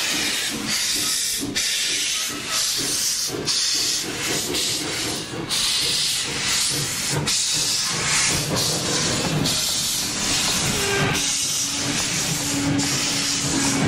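Steam locomotive hissing steam as the train passes, with the rumble of its freight cars rolling by on the rails; the hiss is steady and loud, with brief dips.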